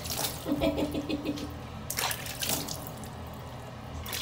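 Water splashing in a plastic baby bath basin as a hand scoops and pours it over a newborn, in bursts about two seconds apart.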